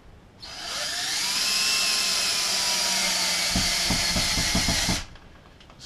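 Cordless screw gun driving a screw up into the ceiling. The motor whine rises as it spins up, then runs steadily, with a quick run of knocks near the end before it stops abruptly.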